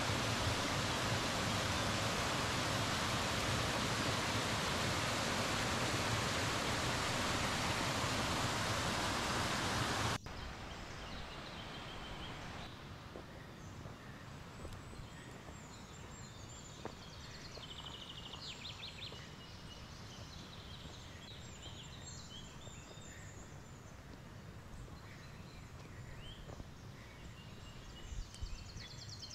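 Mountain waterfall pouring over rocks, a loud steady rush that cuts off suddenly about ten seconds in. Quiet alpine meadow ambience follows, with birds singing short repeated trills now and then.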